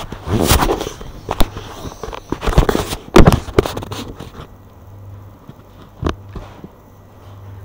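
Handling noise from a handheld recording device being moved about: irregular bumps, rubs and knocks in the first half, then a single click a couple of seconds later, with a faint steady low hum in the quiet stretches.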